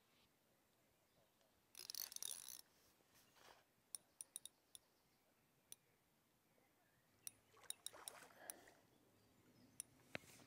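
Mostly near silence, broken by a couple of brief faint splashes and a scattering of sharp little clicks as a hooked carp swirls at the surface close to the landing net.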